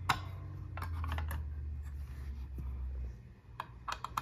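Small metal clicks and taps as an Allen key and locking pliers are handled against the arbor bolt and blade of a Ryobi circular saw, a handful of separate clicks with a quick cluster near the end. A low background hum stops about three seconds in.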